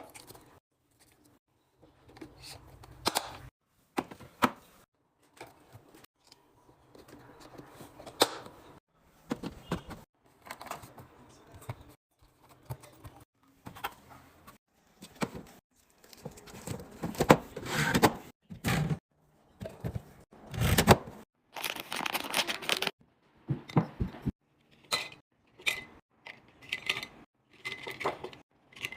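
Groceries and containers being handled while restocking a fridge: packaging rustling and tearing, items knocked and set down one after another, with a few short ringing clinks near the end.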